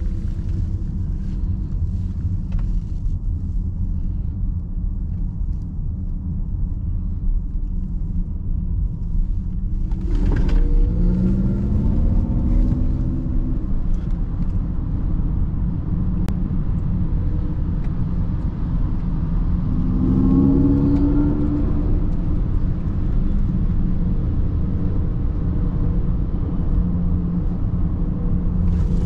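Mercedes-Benz EQS 580 electric car driving at speed, heard from inside: a steady low road and wind rumble. A pitched hum rises through it twice, about ten and twenty seconds in, as the car pulls harder.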